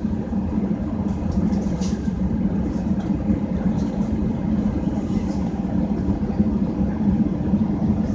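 Airliner engines and cabin noise heard from inside the passenger cabin: a steady, loud low drone as the plane rolls along the runway.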